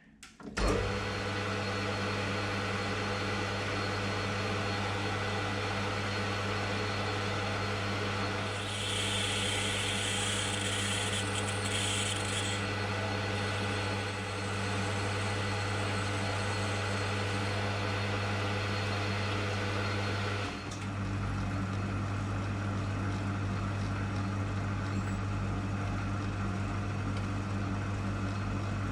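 Mill drill running steadily with a humming motor, while a reamer cuts a hole in a brass bushing. From about nine to twelve seconds in there is an extra high cutting hiss, and the hum dips briefly about twenty seconds in.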